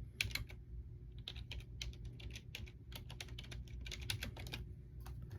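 Irregular, quick clicks of typing on a computer keyboard.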